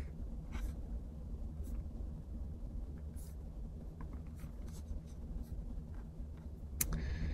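Faint, scattered clicks and light scrapes of a computer being operated while the canvas is zoomed and panned, one sharper click near the end, over a low steady hum.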